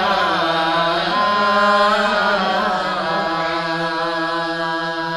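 A man's solo voice chanting a verse of a Sasak hikayat in the sung nembang style, ornamented and wavering in pitch at first, then settling into a long held note from a little past halfway.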